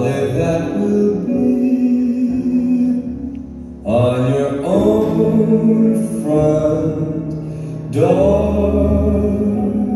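Music with singing, held notes in phrases; a new phrase swells in about four seconds in and again about eight seconds in.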